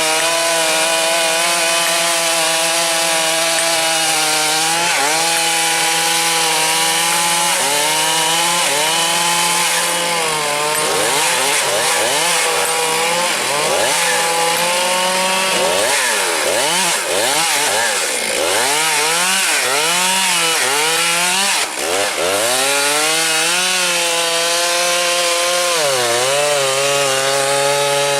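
Chainsaw engine running hard while cutting wood. It holds a steady pitch at first, then through the middle its pitch repeatedly sags and climbs back as the chain bites into the wood and frees again, before settling near the end.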